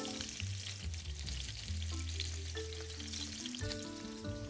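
Oil sizzling and crackling in a pan on the hob, over soft background music holding long steady notes.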